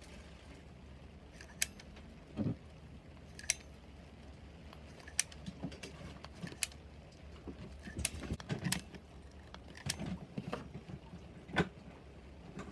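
A dental impression-material dispenser being worked by hand while blue impression paste is pressed through its mixing tip into a wax mold: about eight sharp clicks at irregular intervals of a second or two, with small knocks and rustling handling noise, over a low steady hum.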